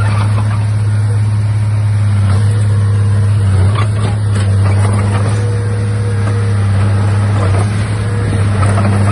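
Komatsu D31A bulldozer's diesel engine running steadily under work, a low, even drone with a few faint clanks mixed in.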